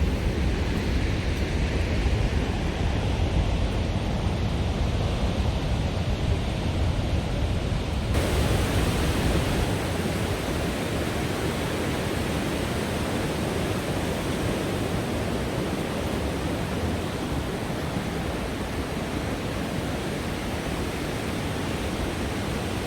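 Snoqualmie Falls, a 268-foot waterfall, giving a steady, even rush of falling water. About eight seconds in, the sound changes abruptly to a brighter, hissier rush.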